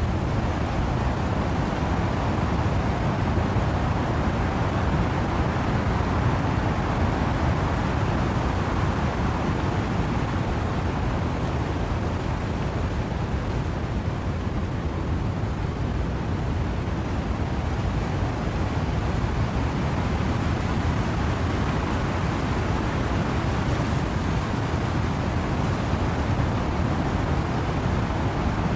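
Wind-driven rain and wind through trees: a steady, dense rushing noise, deepest in the low end, that swells and eases slowly without any distinct drops or gusts standing out.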